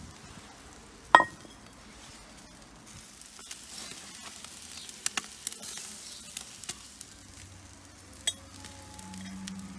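Chicken wings and peppers on metal skewers sizzling over a charcoal grill, with a hissing that swells in the middle. Sharp metallic clinks and knocks of skewers and a pan being handled; the loudest is a ringing clink about a second in, and another comes near the end.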